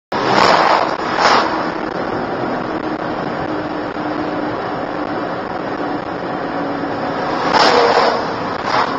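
Steady road and engine noise inside a moving car's cabin, with a rushing whoosh as an oncoming Scania lorry passes at the start and another passing whoosh from oncoming traffic near the end.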